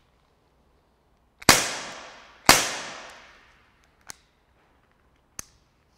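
ASG Dan Wesson 8-inch CO2-powered BB revolver fired twice about a second apart, each sharp crack echoing in the range hall. Two faint clicks follow as the revolver is handled.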